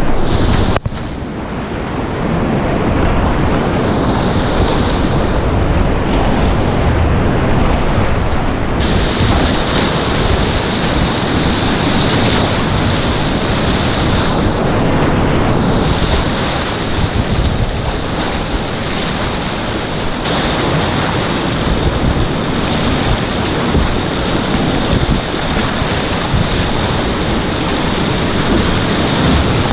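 Whitewater river rapids rushing loudly and steadily around a kayak running through them. The rush dips briefly about a second in.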